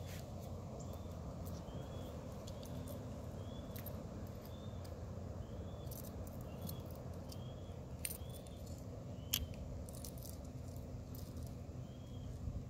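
Light metallic clicks of multi-tool pliers crimping a bottle-cap fishing lure, the sharpest about eight and nine seconds in. Behind them is a steady low background noise, with a short high chirp repeating roughly every second.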